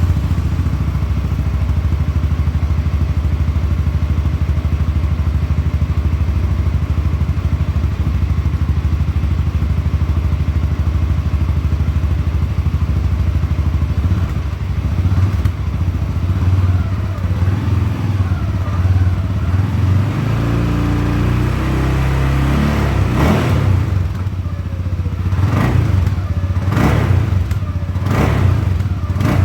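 CFMoto CForce 625 ATV's single-cylinder engine running through its stock exhaust: a steady idle, then rising and falling revs past the middle, and several quick throttle blips near the end.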